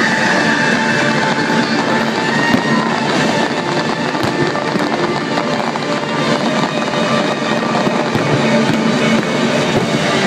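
Fireworks finale: many fireworks firing and bursting in quick succession without a break, with music playing along underneath.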